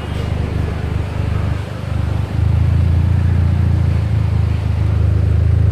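Volkswagen Polo hatchback's engine idling with a steady low hum, getting louder about two seconds in.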